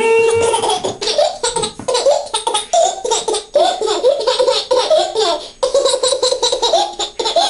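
A toddler laughing in a long run of high-pitched giggles, set off by being tickled.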